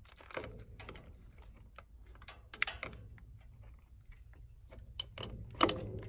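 Adjustable wrench working a battery terminal clamp bolt loose, with the cable clamp worked off the post: an irregular run of small metallic clicks and taps, a few louder ones about two and a half seconds in and near the end.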